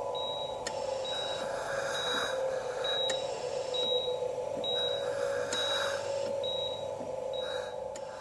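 Hospital patient monitor beeping evenly, a short high beep about every 0.85 seconds, over a steady machine hum. Two longer hisses come, about a second and about five seconds in.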